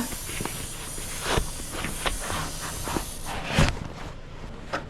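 A series of short clicks and knocks from a door and its lock being handled, the loudest about three and a half seconds in, over a steady hiss.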